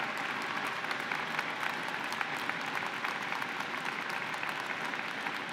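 A large audience applauding steadily, many hands clapping at once.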